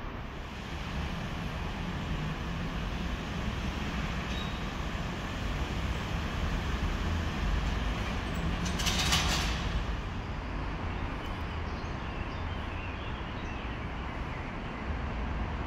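Steady low rumble and hiss of background road traffic, with a short hissing burst about nine seconds in.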